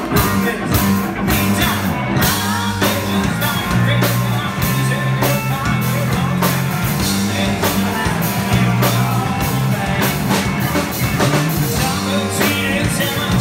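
Live rock band playing a song: a singer over electric guitar, bass guitar and drums, with a prominent bass line and a steady drum beat.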